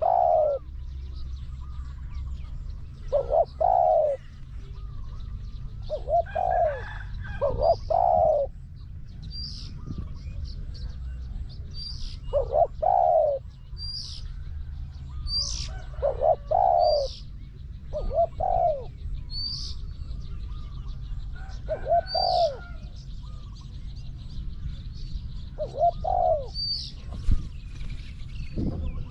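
Spotted doves cooing in short phrases of two or three notes, repeated every few seconds. From about nine seconds in, a small bird gives a sharp high chirp about every two seconds.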